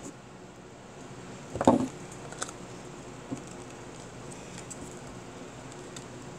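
Plastic Thanos Build-A-Figure part handled close to the microphone: a loud bump and rub about one and a half seconds in, then a couple of light plastic clicks.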